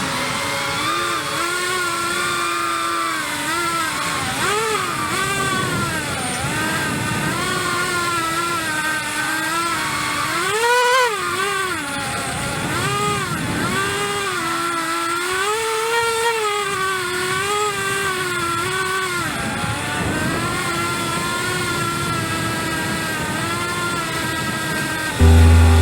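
Cinewhoop FPV drone's brushless motors and ducted propellers whining, the pitch rising and falling constantly with throttle changes. Music cuts in near the end.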